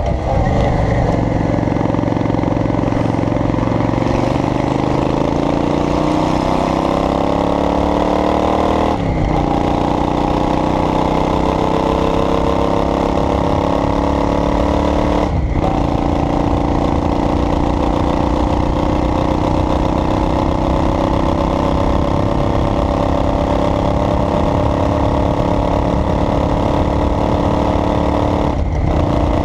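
Motor vehicle engine accelerating through the gears. Its pitch climbs for several seconds and drops at a gear change about nine seconds in, climbs again to a second shift a few seconds later, then runs steady at cruising speed, with a brief dip near the end.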